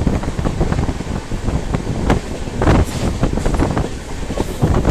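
Passenger train running, a loud rumble with irregular clattering knocks and wind buffeting the microphone.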